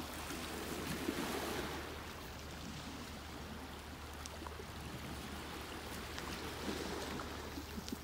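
Gentle sea waves lapping and washing over rocks and pebbles at the shoreline, a steady soft wash.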